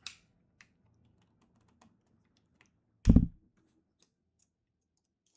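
Plastic keycaps being pulled off a mechanical keyboard and handled: a sharp click at the start and a few light ticks. About three seconds in there is one loud, deep thump.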